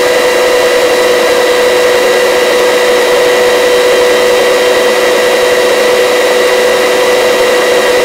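Helicopter in forward flight: a steady, unchanging whine over a constant hiss from its engine and drivetrain.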